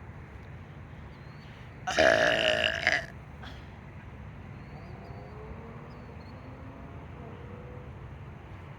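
One loud, drawn-out human burp lasting about a second, starting about two seconds in, over a steady low background rumble.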